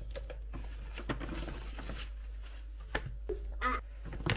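Takeaway ice cream packaging being handled: scattered light clicks, knocks and rustles of bags and containers.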